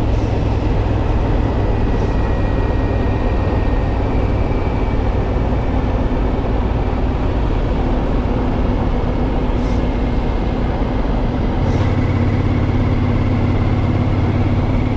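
Triumph Scrambler 900's parallel-twin engine running steadily while the motorcycle cruises, mixed with a steady rush of wind noise. Its low note grows stronger about three-quarters of the way through.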